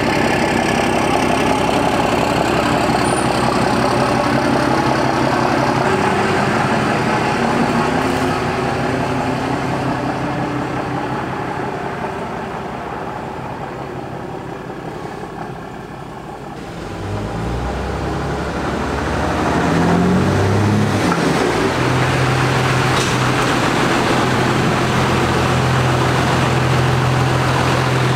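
12-valve Cummins inline-six turbodiesel in a Dodge Ram dually idling, then driving away so its sound fades over several seconds. It comes back with a few revs that rise and fall, then settles into a steady idle.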